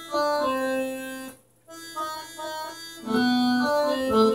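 Electronic home organ played by hand: a simple melody of single held notes that sustain evenly without dying away, with a short stop about a second and a half in, then a few shorter notes and held notes again.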